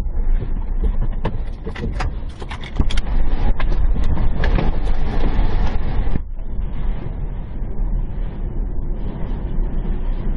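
Storm wind and driving rain buffeting a car, heard from inside as a loud, deep rumble, with a cluster of sharp knocks and clicks between about one and four seconds in.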